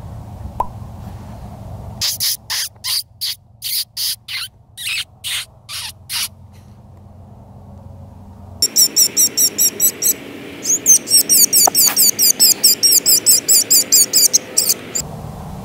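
FoxPro electronic predator caller playing prey distress cries: first a dozen or so loud, evenly spaced high cries, then after a short lull a fast run of sharp, high-pitched squeals, about five a second, that stops abruptly.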